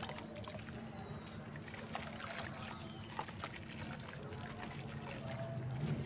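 Wet red dirt squeezed by hands and dripping back into a basin of muddy water, then a dry sand-cement chunk crumbled so gritty bits fall and trickle into the water. The result is a steady mix of small squelches, drips and crumbly patters.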